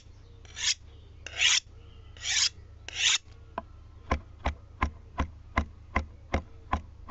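Several short rasping strokes, then from about four seconds in a steady ticking at roughly three ticks a second.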